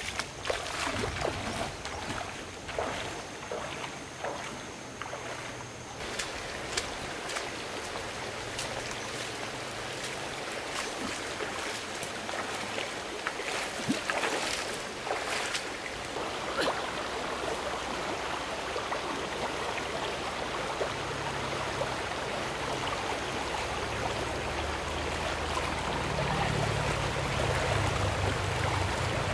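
Stream water running steadily, with scattered knocks and clicks during the first several seconds.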